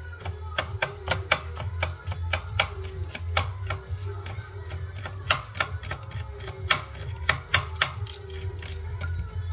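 Santoku knife mincing garlic on a plastic cutting board: quick, uneven taps of the blade striking the board, about three or four a second.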